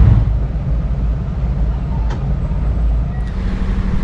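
Low, steady rumble on a car ferry's vehicle deck, with wind buffeting the microphone. A steady low engine drone joins in about three seconds in.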